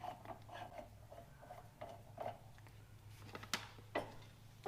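Faint small clicks and taps of knobs being unscrewed from the backhoe's control levers, with two sharper clicks near the end.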